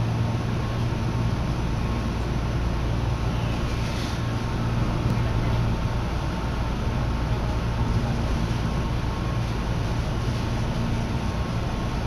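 Railway station platform ambience: a steady low hum over a constant, even rush of background noise.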